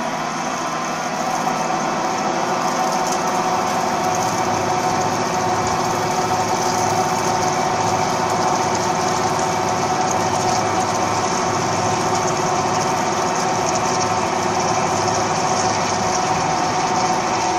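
CNC gantry drilling machine drilling a tube sheet: a steady whine of the spindle and cutting over a high hiss, a little louder from about a second and a half in.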